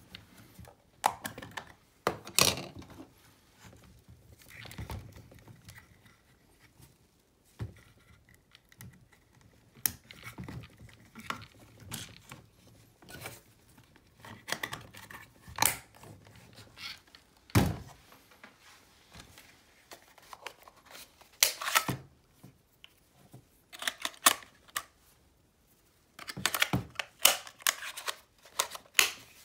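Irregular plastic clicks, snaps and knocks from handling a toy RC car's battery compartment cover and battery pack, then the remote control's battery cover. Partway through there is one heavier thump.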